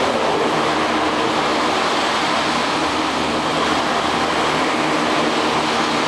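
Gondola station machinery running: a steady mechanical rumble and hum as the cabin's hanger wheels roll along the station rail and the drive wheels turn overhead.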